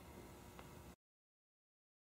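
Near silence: faint room tone that cuts off to complete silence about a second in.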